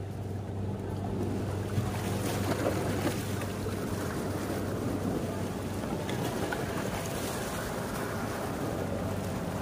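Small lake waves splashing against shoreline rocks over the steady low drone of a passing motorized outrigger boat's engine; the splashing is strongest in the first half.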